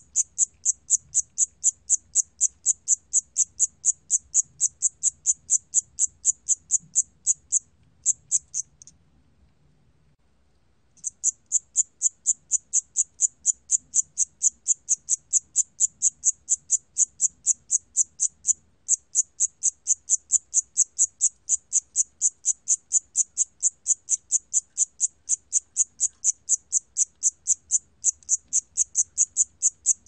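Siamese cricket (샴귀뚜라미) singing, recorded at 28 °C: a steady train of short, high-pitched chirps, about three to four a second. It stops for about two seconds around nine seconds in, then resumes at the same even rate.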